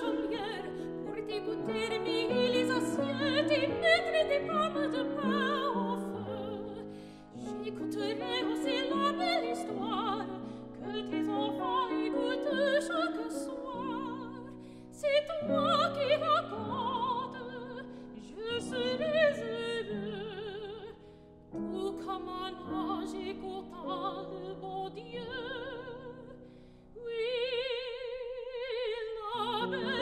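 Soprano singing a French art song with vibrato, accompanied by grand piano. Near the end she holds one long note while the piano drops almost away.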